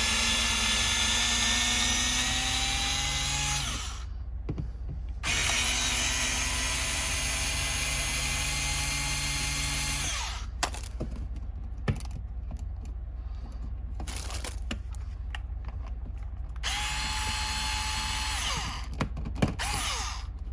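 Power drill-driver running in three bursts, the longest about five seconds, with small clicks and taps between them: backing out the screws holding an old wall outlet in its box.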